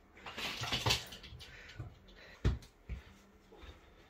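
A cat scuffling and rolling on a bristly doormat while it wrestles a small toy: a rustling scratch for about a second. Two dull thumps follow, about half a second apart.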